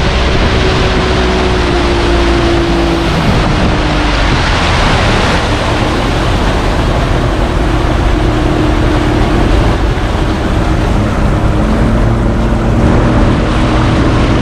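Small motorboat under way, its engine running steadily with a low drone, mixed with rushing water and wind noise.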